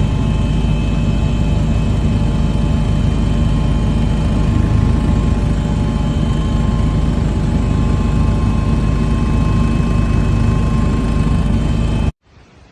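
Loud, steady machine drone with a deep rumble and a few steady whining tones over it, like an aircraft engine, cutting off suddenly near the end.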